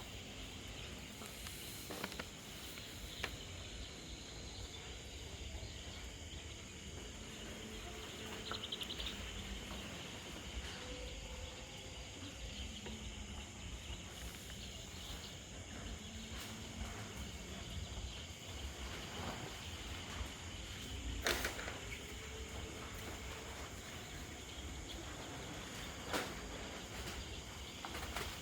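Wind rumbling on the microphone over a faint, steady, high-pitched chirring, with a few scattered clicks, the clearest about two-thirds of the way through.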